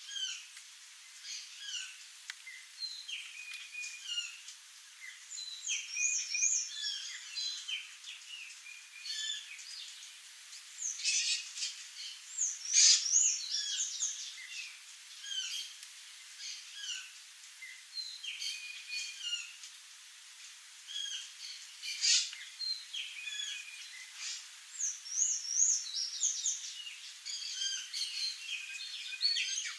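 Birds calling: a busy run of short chirps and rising-and-falling whistles from several birds, with louder calls about 11, 13 and 22 seconds in.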